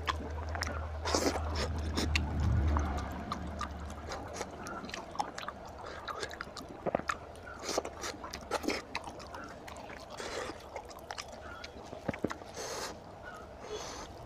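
Close-miked wet eating sounds: irregular chewing and lip smacks, with fingers squelching through oily mutton curry and tearing meat from a curried mutton head. A low hum sits underneath for the first few seconds.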